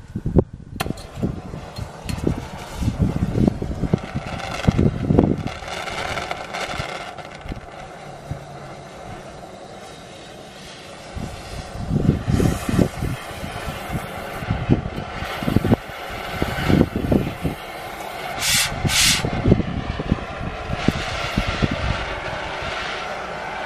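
Oxy-fuel cutting torch lit about a second in, then burning with a steady hiss while its valves are adjusted, with two short, sharper hisses near the end. Gusts of wind buffet the microphone.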